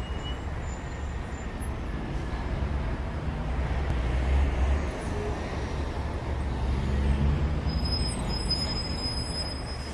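Street traffic: vehicles driving past with a low engine rumble that swells twice, about four and seven seconds in. A thin high tone comes in near the end.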